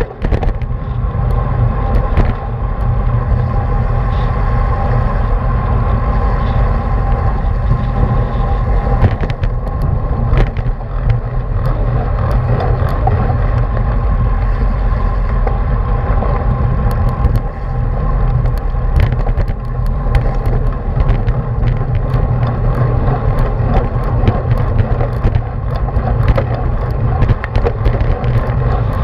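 Wind buffeting the microphone of a camera on a racing bicycle at speed, over a steady rumble of tyres on pavement, with a faint steady hum and frequent small clicks and knocks.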